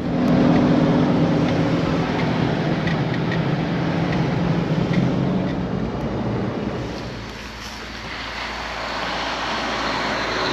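Motor vehicle running: a steady low engine hum with road noise for the first half, easing off about seven seconds in and then giving way to a rising rush of noise.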